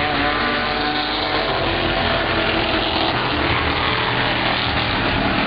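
Street stock race cars running at racing speed, several engines sounding together in a steady, loud drone as the pack goes by.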